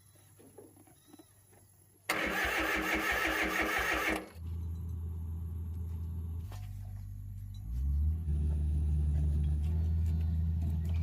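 An engine is cranked by its starter for about two seconds, catches, and settles into a steady run. A little before the end it speeds up slightly and runs steadily at the higher speed.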